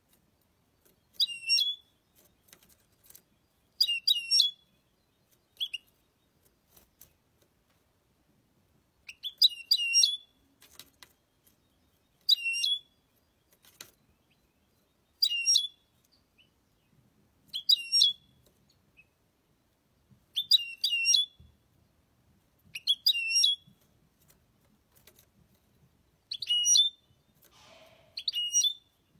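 European goldfinch singing in short, high-pitched twittering phrases, each under a second long, repeated about every two to three seconds.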